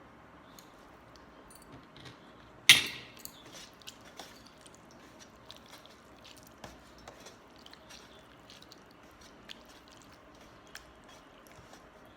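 Eating panta bhat, water-soaked rice: wet squishing and chewing with scattered soft clicks, and one loud sharp crack about three seconds in.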